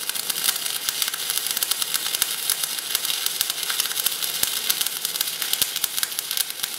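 Stick-welding arc crackling and hissing steadily as a 2.6 mm LB-52 basic-coated electrode burns on steel, run in MMA mode on a PTK Rilon MIG 200 GDM inverter. The crackle is even and unbroken: the machine holds a stable arc on the basic-coated rod.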